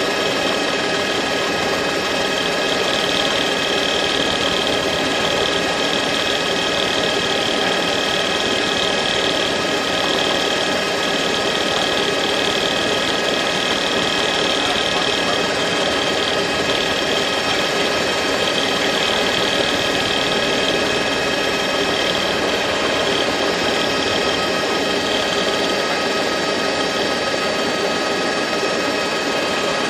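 Helicopter engine and rotor noise, steady and unchanging, with a constant high whine over it.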